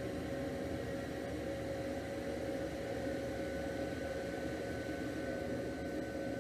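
Steady hum and hiss of running focused-ultrasound equipment, with a steady mid-pitched tone. A second, higher tone joins about three seconds in.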